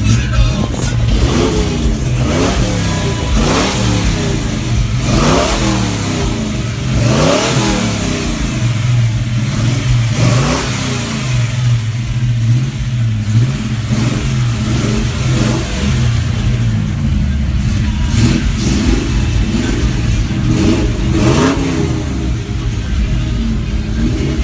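Car engines revved again and again, each rev a quick rise and fall in pitch, with a steady low idle hum between the revs in the middle of the stretch.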